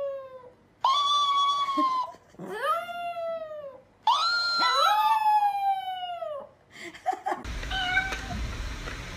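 Chihuahua howling: three long howls, each rising and then sliding slowly down in pitch, the last overlapped by a second howling voice. About seven and a half seconds in it cuts to a steady hiss.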